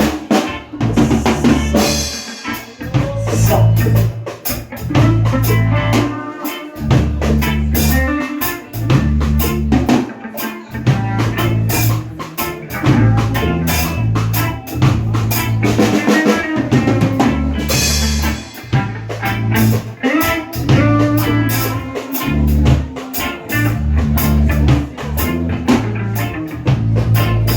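A live rock band playing an instrumental groove during a soundcheck: a drum kit with rimshots and bass drum, and guitar over a heavy repeating low line.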